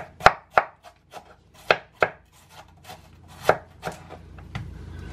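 Kitchen knife shredding red cabbage on a wooden cutting board: about a dozen sharp, irregularly spaced cuts, each ending in a knock of the blade against the board.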